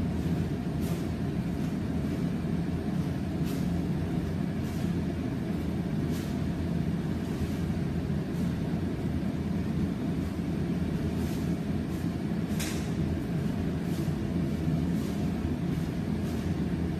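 Steady low rumble of background noise, with short sharp snaps scattered through as a taekwondo uniform cracks on the boy's kicks and strikes during a poomsae form. The loudest snap comes about two-thirds of the way in.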